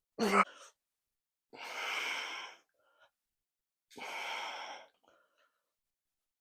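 A man breathing out hard twice, long forceful exhales about two and a half seconds apart, while lifting a dumbbell in lateral raises. A short, sharp, loud sound comes right at the start.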